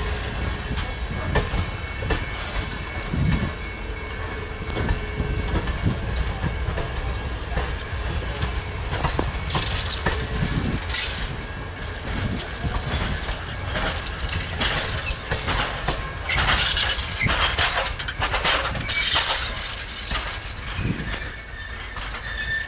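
Grand Canyon Railway passenger train cars rolling past, with steady rumble and wheels clicking over the rail joints. About halfway through, a high-pitched wheel squeal comes in and grows louder near the end.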